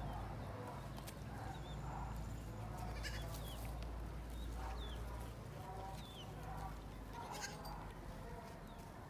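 Goats bleating a few times over a steady low rumble, with a few sharp clicks.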